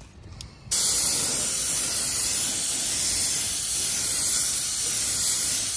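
DeVilbiss Tekna compressed-air spray gun spraying UV primer. After a short quiet start, the trigger is pulled under a second in and a steady, loud hiss of air and atomised primer follows.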